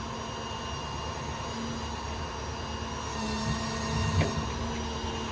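Steady hum of the service truck's 6.7 Power Stroke diesel running with the Autocrane's hydraulics, a steady tone in it that grows stronger about three seconds in. A brief knock about four seconds in.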